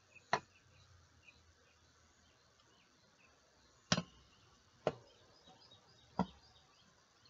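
Four sharp knocks and clicks from a metal Yashica Super-8 25 movie camera being handled and turned over in the hands. One comes just after the start and three follow about a second apart from about four seconds in, with faint chirping in the background.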